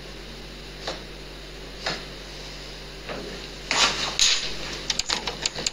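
Two soft taps, then from about four seconds in a rapid, irregular run of clicks and rattles as small objects are handled.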